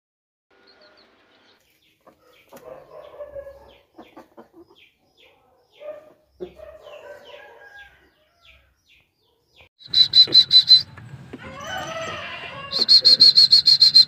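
Parrot-beak aseel rooster crowing once, near the end, between two bursts of a loud, rapid, high-pitched pulsing trill of about eight pulses a second. Faint clucks and chirps come before it.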